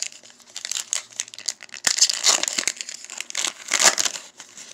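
A trading card pack's wrapper crinkling and crackling as it is torn open by hand, in uneven bursts, with the loudest crackles about two seconds in and again near the end.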